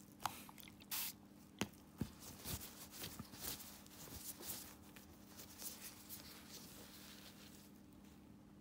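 Faint handling sounds on a toe: a few sharp clicks in the first two seconds, then soft rustling as gauze is wiped over the toe, dying down after about five seconds. A steady low hum runs underneath.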